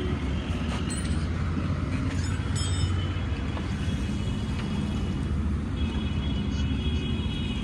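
A motor vehicle engine running with a steady low rumble; a faint high whine joins near the end.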